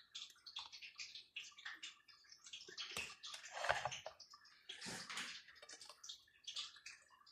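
Faint, irregular crackling and popping of hot oil frying quesadillas in a pan.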